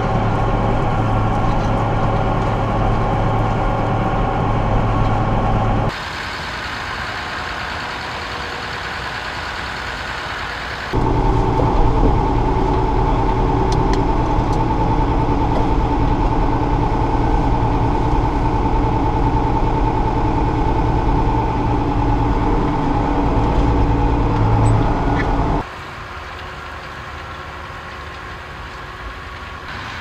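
Tractor engine running steadily under ploughing load, heard from inside the cab as a loud, even low drone. About six seconds in and again near the end it drops to a quieter, more distant engine sound, returning loud around eleven seconds.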